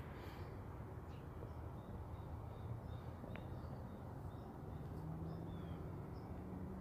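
Quiet outdoor ambience: a low steady rumble, with a faint series of short high chirps, a few a second, starting about two seconds in. A low steady hum comes in for the last couple of seconds.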